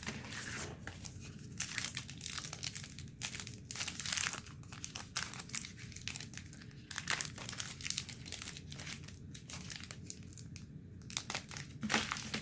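Wrapper of a Panini trading-card pack crinkling and crackling irregularly as hands try to tear it open; the pack is hard to open without a tool.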